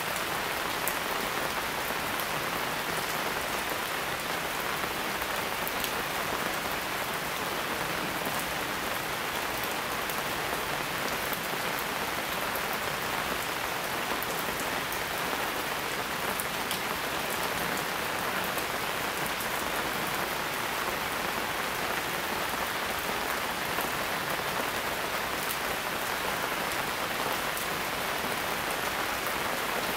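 Steady rain falling on a leafy broadleaf forest canopy, an even hiss with scattered sharp ticks of single drops close by.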